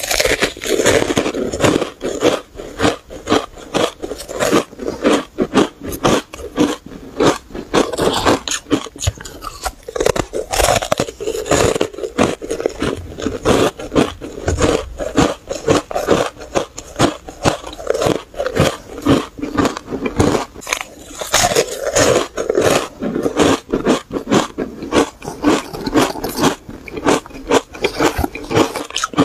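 Chunks of powder-coated ice being bitten and crunched between the teeth: a fast, unbroken run of crisp crunches, several a second.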